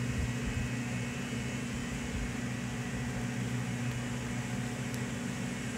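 Steady low mechanical hum, like a running appliance or fan, unchanging throughout.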